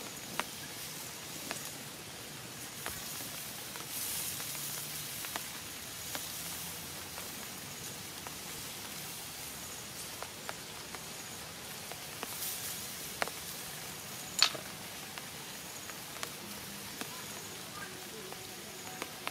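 Skewered lizards sizzling on a hot flat stone over a wood fire, a steady hiss with scattered crackles and pops from the burning wood; one sharper snap about fourteen seconds in.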